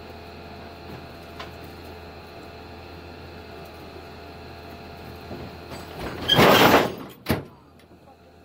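Mazda pickup rolling off the end of a steel flatbed trailer: over a steady hum, a loud scraping clatter about six seconds in, then a sharp bang a moment later as it drops onto the ground.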